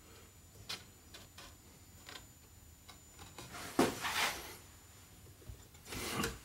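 Light knocks and scrapes of a coated chipboard shelf board being set into place and pressed down by hand. There are a few small clicks, then a louder knock followed by a brushing rub about four seconds in, and another rub near the end.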